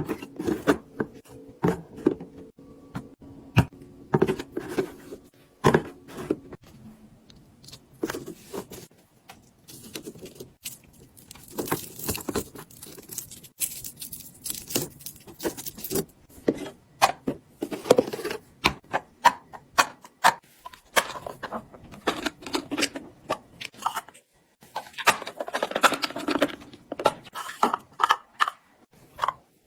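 Restocking a mini fridge: drinks and packaged items being handled and set in place, a quick run of small clicks, knocks and taps with packaging rustling.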